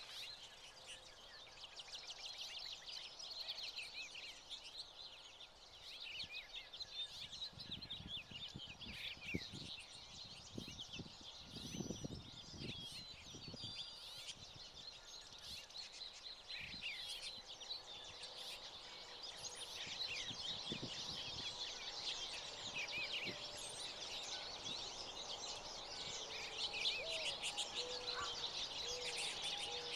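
A flock of American goldfinches twittering at a feeder: a continuous chatter of quick, high chirps. A few soft low thumps come about halfway through.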